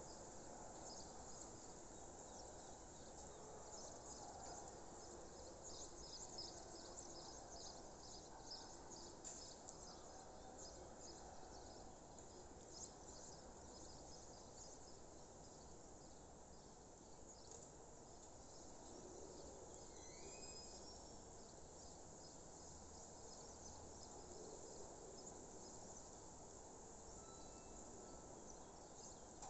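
Faint dawn countryside ambience: insects chirping in many short high pulses, with the odd bird call, one of them a quick rising call about two-thirds of the way through.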